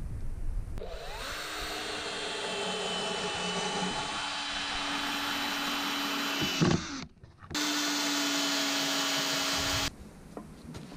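Cordless drill driving decking screws into a 2x4. The motor spins up about a second in and runs steadily for about six seconds. A knock follows, then after a short break the drill runs again for about two seconds and stops abruptly.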